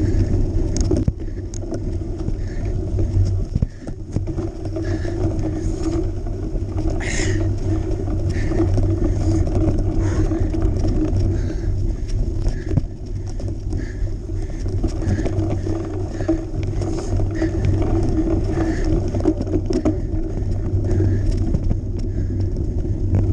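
Steady wind rumble and tyre and drivetrain noise from a cyclocross bike ridden along a muddy track, heard through a bike- or rider-mounted action camera.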